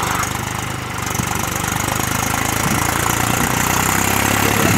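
Mahindra 275 DI tractor's diesel engine running steadily under load as it tries to pull a loaded stone trolley out of mud, growing a little louder in the second half.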